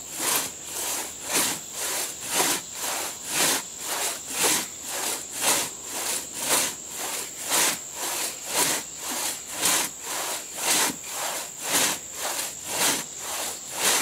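A two-man 3-foot crosscut saw rasping back and forth through a standing tree trunk, making the felling back cut. It goes at a steady rhythm of about two strokes a second, every other stroke louder.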